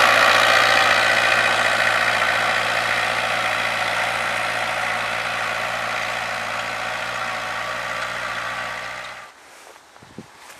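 Homemade tractor's Opel Rekord 2.3-litre diesel engine running steadily while pulling a harrow through soil, slowly growing fainter. The sound cuts off suddenly near the end, leaving quiet outdoor background with a couple of small knocks.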